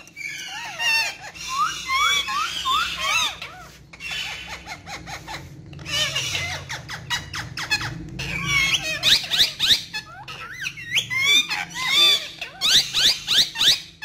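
Indian ringneck parakeets calling and chattering: quick runs of short, shrill chirps and squawks that sweep up and down in pitch. The runs are densest and loudest in the second half.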